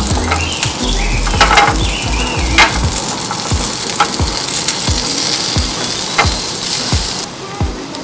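Frozen dumplings sizzling and spitting in hot oil on a pan as they are set down one at a time, with a few light taps as each one lands.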